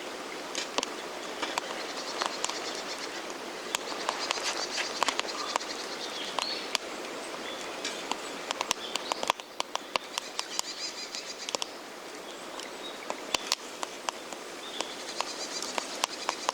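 Wood campfire crackling in the snow, with irregular sharp pops and snaps over a steady hiss of the fire.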